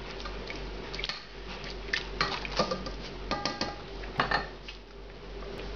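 A utensil clinking and scraping against a cooking pot during stirring of a thin curry sauce, in scattered knocks with a few brief metallic rings.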